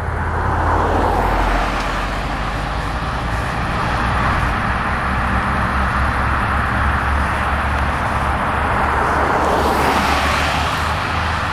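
Highway traffic: steady road noise with vehicles passing, two of them swelling louder about a second in and near the end, over a low rumble.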